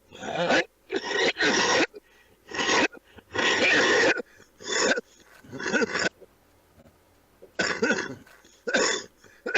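A man coughing in a fit: about nine short coughs in uneven groups, with gaps of a second or so between the groups.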